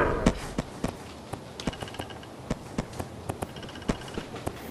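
Irregular light taps and clicks, a few a second, with no speech.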